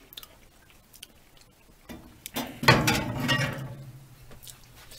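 Frying pan full of roasted sunflower seeds set back onto the wire rack of a small electric oven: a few faint clicks, then a loud metal scrape and clatter about two and a half seconds in that fades over about a second, with a low hum running on after it.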